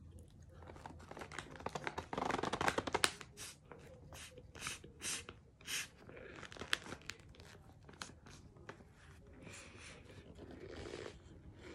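Cardboard box of corn starch being handled and opened: many sharp crackles and crinkles with tearing of the cardboard, and three short crunches about halfway through.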